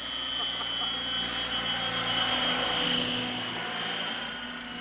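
Align T-Rex 700 radio-controlled helicopter in flight: a steady high whine over the rush of its rotor blades. It grows louder toward about three seconds in as it passes close, then eases off.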